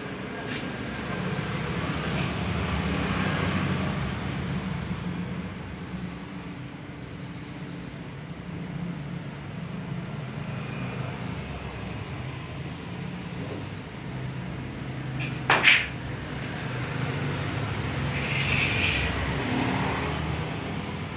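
Steady low rumble of vehicles passing, swelling up and fading twice. A single sharp knock about fifteen seconds in is the loudest sound.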